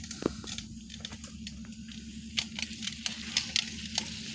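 Mountain bike climbing a dirt trail: tyres crackling over gravel and loose ground, with many scattered sharp clicks and ticks.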